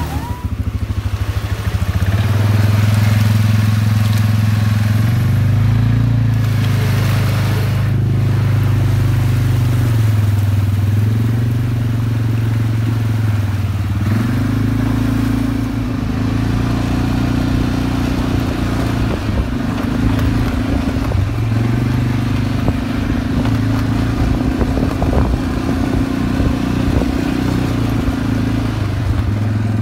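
ATV engine running steadily as it is ridden over a rough, rocky trail. Its pitch steps up about halfway through and then rises and falls with the throttle, with scattered knocks and rattles from the bumpy ground.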